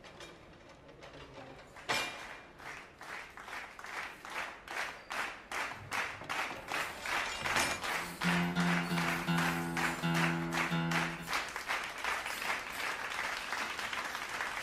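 Audience clapping in time, about two to three claps a second, growing steadily louder. A low held tone comes in for a few seconds in the middle, in short pulses.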